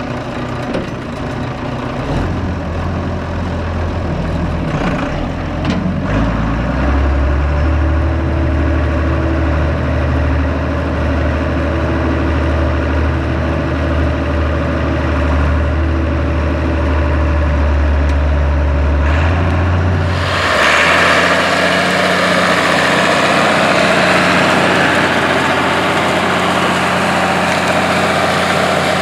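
Allis-Chalmers 200's turbocharged six-cylinder 301 cu in diesel running under load, heard from the operator's seat while pulling a tandem disk; the engine note shifts a couple of times in the first several seconds, then holds steady. About 20 seconds in the sound turns brighter and hissier, as the working tractor and disk are heard from outside.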